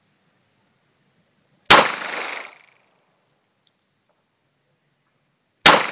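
Two shots from a 9mm Glock pistol, about four seconds apart, each followed by a short echo that fades away.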